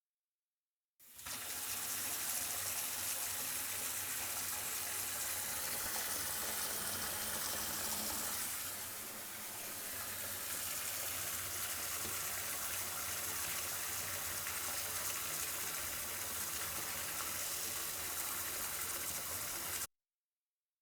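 Bathtub filling from a running tap: a steady gushing stream of water pouring into the tub. It starts abruptly about a second in, dips briefly midway, and cuts off suddenly near the end.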